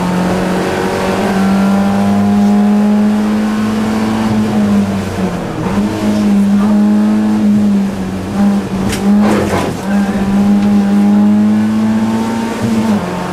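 BMW E30 318iS rally car's four-cylinder engine heard from inside the cabin, pulling hard with its pitch climbing as it accelerates. The revs drop and pick up again a few times around the middle, as for gear changes and a lift for a bend. A brief sharp noise comes about nine seconds in.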